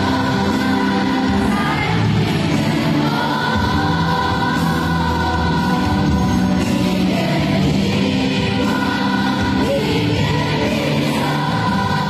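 A stadium crowd of tens of thousands singing along together over the concert's backing music.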